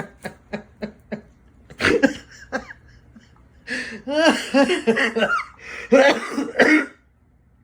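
A person's voice coughing and laughing: a short burst about 2 seconds in, then a longer run of coughs and laughs that stops near the end.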